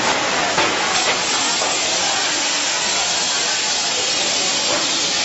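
Steady loud hiss of factory machinery running on an LED aging test line, with a few light clicks in the first second.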